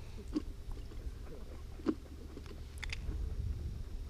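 Wind rumbling on the microphone, with a few small sharp clicks and rustles as a fishing lure and line are handled in bare hands.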